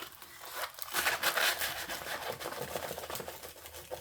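Rustling and crinkling of a diamond painting canvas and its plastic cover film as it is unrolled and rolled the other way, with small clicks and crackles, loudest about a second in.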